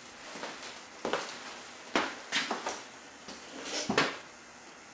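A run of knocks and clunks, a second or so apart, with a louder cluster near the end: metal parts and tools being handled and set down on a wooden workbench.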